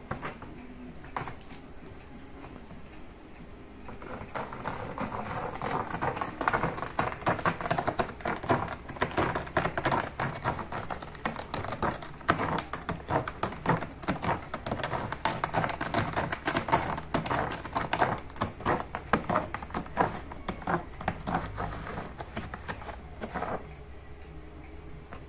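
A ginger Munchkin cat clawing a corrugated cardboard scratching board: rapid, dense scratching strokes that start about four seconds in and stop shortly before the end.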